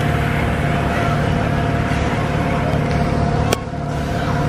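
Steady machine hum over a low rumble, with a sharp click about three and a half seconds in, after which it drops slightly.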